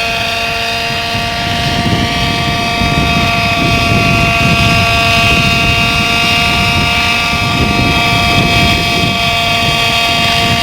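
Small unmanned helicopter's engine and rotor running at a steady pitch, with gusty wind buffeting the microphone.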